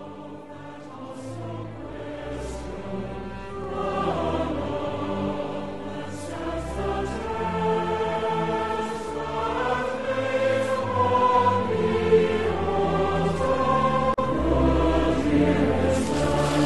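Background choral music, a choir singing long held notes over a deep bass, swelling steadily louder.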